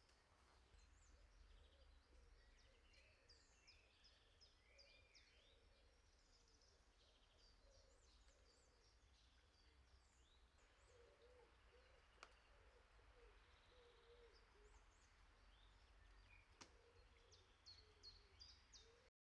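Near silence: faint outdoor ambience with small birds chirping on and off over a low rumble, and two faint sharp ticks. The sound cuts off just before the end.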